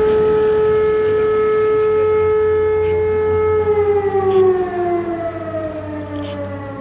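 Electric motor-driven fire siren (civil-defence type) sounding a loud steady tone as the alarm that calls out the fire brigade. About three and a half seconds in, it starts to wind down, its pitch falling slowly.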